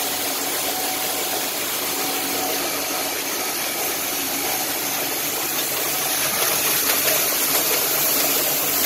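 Stenz Ecofeed envelope feeder and the envelope machine it feeds, running steadily as they pass C6 window envelopes through: an even mechanical whir, growing a little louder in the last few seconds.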